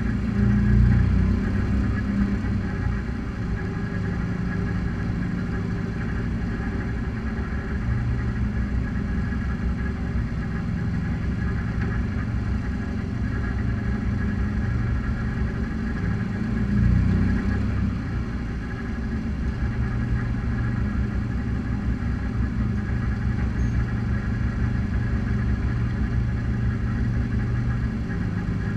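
Race car engines idling in a line-up, a steady low rumble that swells briefly about a second in and again around seventeen seconds in.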